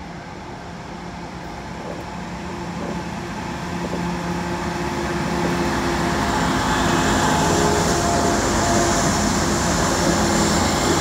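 A lash-up of many CN diesel-electric freight locomotives running past close by, their engine drone and rumble growing steadily louder as they approach, then holding loud as the locomotives pass below.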